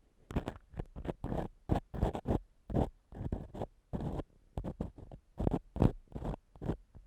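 Ear-cleaning tool scratching inside a microphone's ear in short, even strokes, about three a second, imitating ear cleaning up close.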